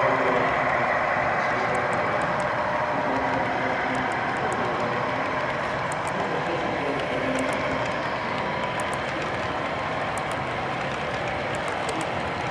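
HO scale double-stack container train rolling past, its well cars' wheels running on the model track as a steady rolling noise with scattered faint clicks, slowly getting quieter.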